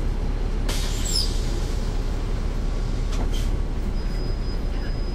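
Interior of a NABI 416.15 transit bus heard from the back seat: its Caterpillar C13 ACERT diesel engine running steadily under road noise. A brief hissing burst comes about a second in, a short sharp click near three seconds, and a faint high steady tone from about four seconds on.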